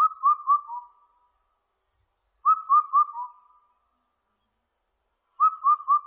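Indian cuckoo singing its four-note whistled song: three clear notes of the same pitch and then a lower fourth. The phrase repeats about every three seconds.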